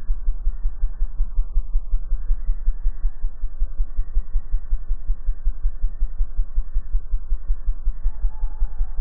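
Hovering hummingbird's wingbeats played back at one-tenth speed, heard as a deep, even pulsing of about five beats a second.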